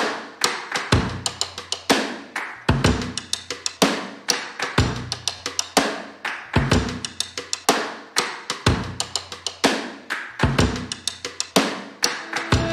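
Background music: a steady drum beat with a deep bass kick about every two seconds and quick hi-hat clicks between.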